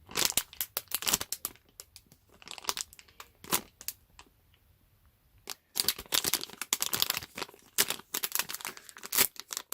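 Plastic blind-bag packaging crinkling and tearing as it is opened, in irregular spells of sharp crackles with a short lull about halfway through.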